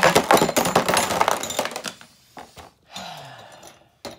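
Beyblade spinning tops clattering in a plastic stadium: a fast run of clicks and scraping as a top that has just burst into pieces skitters around with its opponent, dying away about a second and a half in. A short falling whir near three seconds, and a single click near the end as the parts are picked up.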